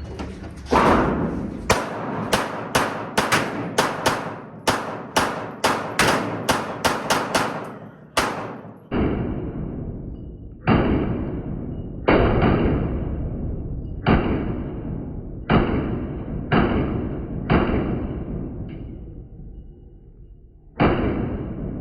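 Pistol shots in a timed course of fire: a fast string of about seventeen shots in the first eight seconds, then slower single shots about a second apart, each with a short echoing tail.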